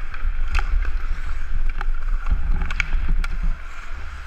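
Ice hockey skating heard from a helmet-mounted action camera: a steady low rumble of wind and movement on the microphone under the hiss of skate blades on ice, with several sharp clacks of sticks and puck.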